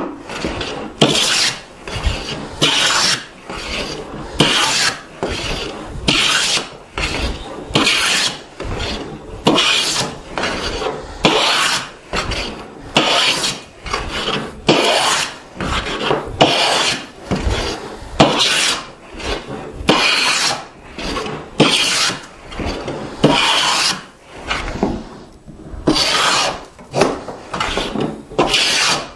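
Try plane taking repeated long strokes along a board face, about one a second, each a rasping hiss of the iron cutting a shaving. The board is being brought down to thickness. There is a short pause near the end.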